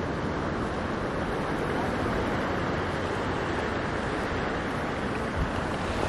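Steady wash of ocean surf, with wind blowing across the microphone.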